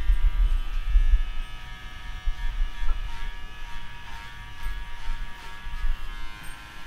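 Electric pet grooming clippers buzzing steadily as they trim hair around a man's ear. There is a low rumble in the first second and a half.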